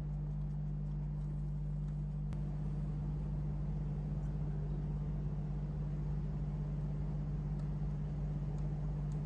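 A steady low hum with an even wash of background noise that holds unchanged throughout. It is marked only by a couple of faint clicks.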